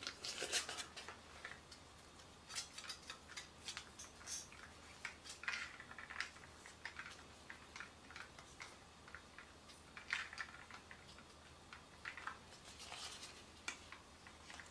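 Faint, irregular crinkling and rubbing of an alcohol wipe being unfolded and wiped across a phone's glass screen, with scattered light ticks.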